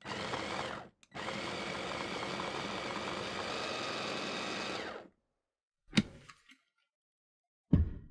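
Small electric food processor running in pulses as it cuts cold butter into flour: a short burst, a brief stop about a second in, then a steady run of about four seconds that cuts off suddenly. Two sharp knocks follow, about two seconds apart, as the plastic container is handled.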